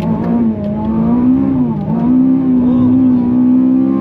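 Honda Civic FN2 Type R's K20 four-cylinder engine pulling at high, nearly steady revs, with a brief dip and recovery a little under two seconds in.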